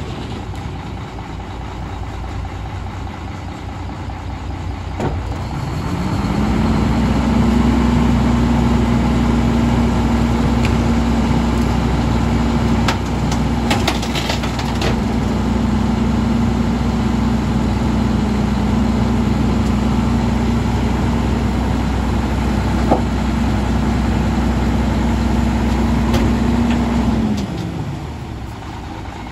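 Diesel engine of a Volvo WXLL rear-loader garbage truck idling, then raised about six seconds in to a steady higher speed held for some twenty seconds while the Heil 5000 body's hydraulic packer blade cycles through the hopper, dropping back to idle near the end.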